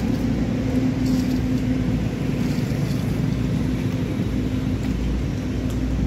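Road traffic going by: a steady engine and tyre rumble with a low hum.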